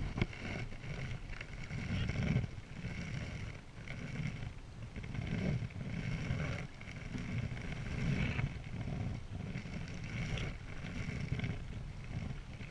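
Selway Fisher Wren canoe being paddled: paddle strokes and water rushing along the hull swell and fade every couple of seconds.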